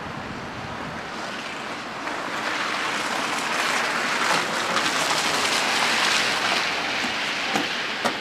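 Bus driving past on a snowy, slushy road: its tyres hiss through the slush, swelling to a peak mid-way and then fading, with a short knock near the end.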